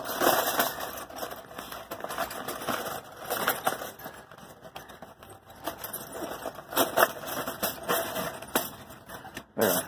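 Cardboard box of plastic knives being torn open by hand along its perforated flap: irregular ripping and crackling of the cardboard, with sharp clicks from the plastic cutlery inside.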